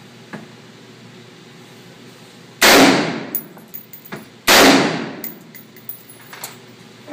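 An AR-15 firing two short full-automatic bursts about two seconds apart, each ringing out in the reverberant indoor range, followed by several lighter metallic clicks and clinks.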